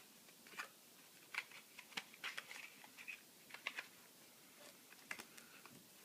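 Faint, scattered light clicks and taps, irregularly spaced over several seconds, from hands working a toy cash register.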